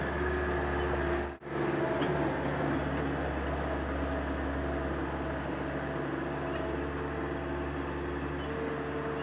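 Bobcat 763 skid-steer loader's diesel engine running steadily while it spreads and grades gravel base rock, with a brief drop-out about a second and a half in.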